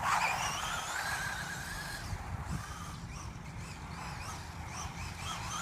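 Remote-control car's electric motor whining, its pitch sliding up and down as the car speeds up and slows.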